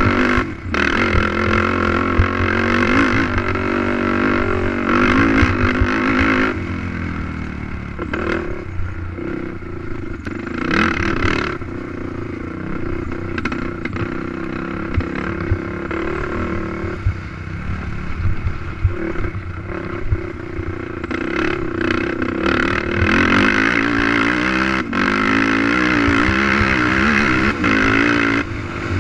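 Racing ATV engine revving hard and easing off again and again, its pitch rising and falling as the quad is ridden around a dirt race track, with rattling and clatter from the machine.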